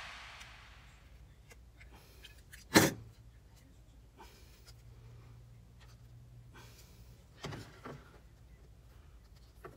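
Small plastic clicks and knocks from a hand-held Jeep Commander sunroof sunshade roller as its spring-loaded rod is worked into place, with one sharp, loud click about three seconds in and two smaller clicks near the end.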